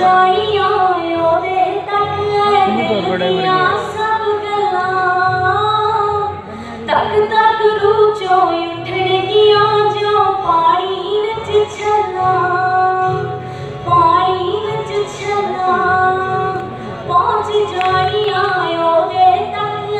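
A woman singing a melody into a microphone, her sustained notes bending and wavering in pitch.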